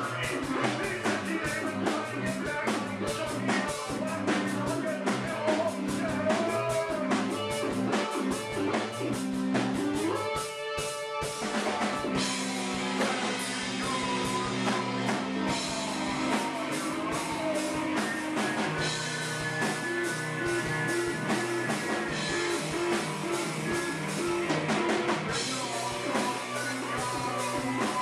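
Live rock band playing in a bar, with drum kit, electric guitar and singing; the music briefly thins out about eleven seconds in, then carries on with long held notes.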